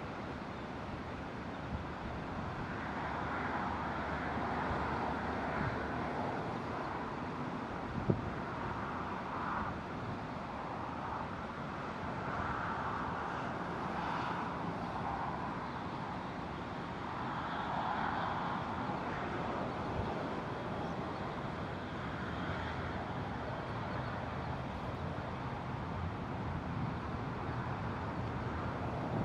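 Distant road traffic: a steady wash of tyre and engine noise, with passing cars swelling up and fading every few seconds.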